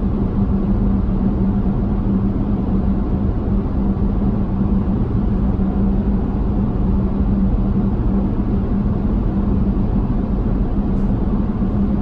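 Wind noise from LFD Off Road roof-rack crossbars at 70 mph, heard inside the cabin of a Toyota 4Runner: a steady low hum over road and wind rumble, very consistent.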